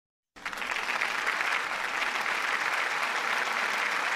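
Crowd applause, many hands clapping at a steady level, starting abruptly just after the start.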